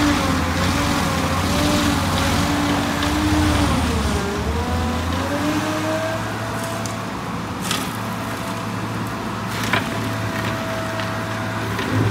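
Stump-grinder attachment on a Cat 308E2 CR mini excavator grinding a tree stump, a whining cutter head over the low rumble of the machine. The whine wavers and dips in pitch about four seconds in under load, then holds higher and steadier; a couple of sharp cracks come in the second half.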